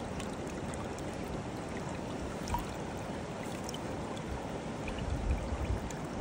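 Shallow mountain stream running over rocks: a steady rush of water with a few faint ticks and trickles.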